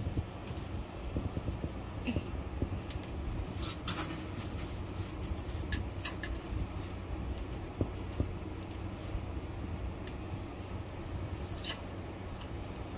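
Iguana claws scratching and tapping as it scrambles over cages and enclosures: scattered light scrapes and clicks, a few sharper knocks about four, eight and twelve seconds in, over a low steady hum.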